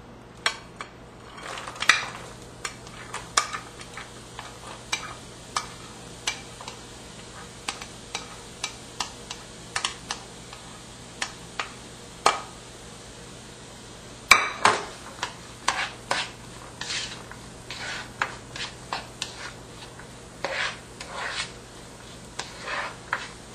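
Wooden spoon stirring diced onions, celery and garlic in butter in a nonstick pan: irregular knocks and scrapes of the spoon against the pan, two of them louder, about two seconds in and near the middle, over a soft sizzle of the vegetables frying in butter.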